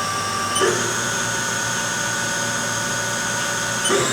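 Haas Super Mini Mill vertical machining center spindle running with a steady whine. It steps up in pitch twice, about half a second in and near the end, as the speed override is raised from about 6,000 rpm toward 8,000 rpm.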